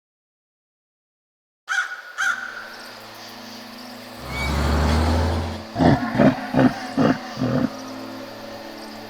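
Cartoon sound effects after a second and a half of dead silence: a few sharp clicks and a steady low hum, then a low rumble, then five quick loud pulses in a row, about two and a half a second.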